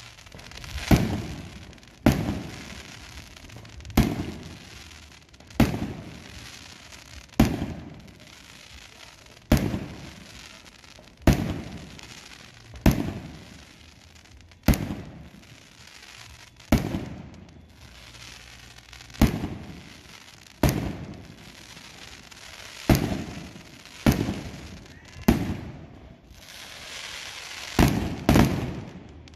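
Aerial fireworks bursting in the sky one after another: about seventeen sharp bangs, one every one and a half to two seconds, each trailing off in an echo, with two bangs in quick succession near the end.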